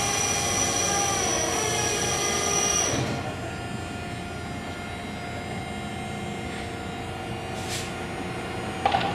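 Steady mechanical drone of a cruise ship's deck machinery, holding several steady tones. A high whine stops about three seconds in, leaving a quieter hum, and two short clicks come near the end.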